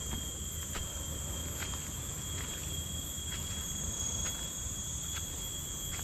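Footsteps on dry leaf litter along a forest trail, a step a little under every second, over a steady high-pitched insect drone holding two constant pitches. A low rumble runs underneath.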